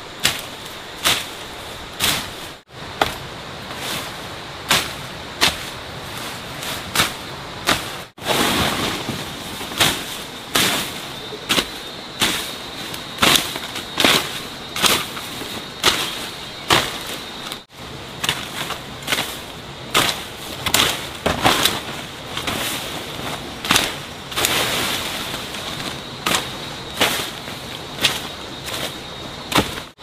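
Sharp knocks repeated steadily, a little more than one a second, with a faint steady high whine behind them.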